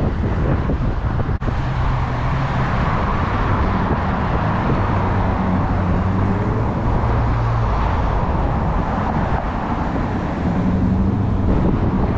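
City road traffic: cars driving past on the street, a steady rumble of engines and tyres with a low engine hum that swells as vehicles go by.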